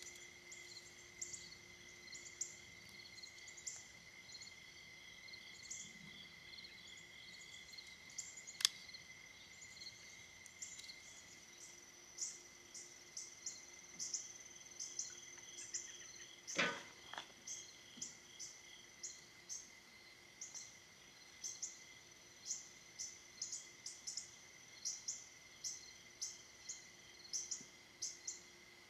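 Quiet evening outdoor ambience: a steady high drone with rapid, repeated high chirps from insects and birds. A few sharp knocks of split firewood against a steel fire ring and grate cut through it, the loudest about 17 seconds in.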